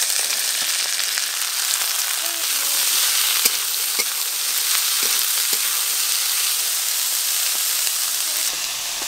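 Chopped carrots and green beans sizzling steadily in hot oil and ghee in a metal wok as they stir-fry. A few sharp clicks of the spatula against the wok come in the middle.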